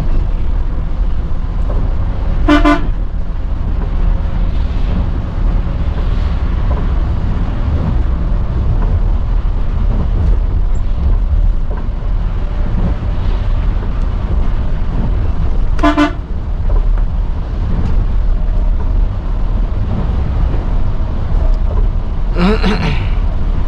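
Passenger coach driving, its engine and road noise a steady low drone in the driver's cab, with brief horn toots about two and a half seconds in, again around sixteen seconds in, and once more near the end.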